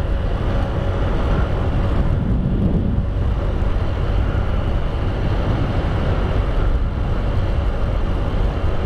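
A vehicle travelling at a steady speed: constant engine and road noise with wind, with no breaks or changes.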